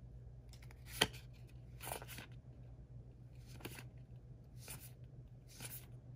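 Magic: The Gathering trading cards sliding against each other as they are flipped one at a time through a stack, a short swish about once a second, with a sharp click about a second in. A low steady hum runs underneath.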